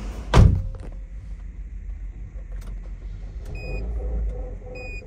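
The Chevrolet Cruze's 1.8 engine running with a steady low rumble. A loud thud comes about half a second in, and from about three and a half seconds in, an electronic chime beeps twice, about a second apart.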